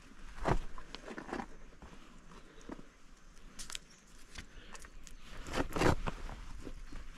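A hiker's footsteps on a rough bush track: irregular scuffing steps, the loudest just before the end.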